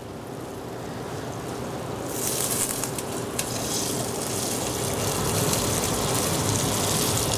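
Chicken stock poured into a hot saucepan of butter and sliced sunchokes, splashing and sizzling. The hiss grows louder about two seconds in as the pour gets going.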